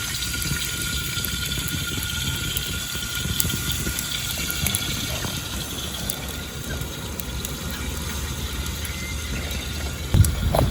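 Wood campfire burning, with a steady hiss and scattered small crackles. A louder low knock or thump comes near the end.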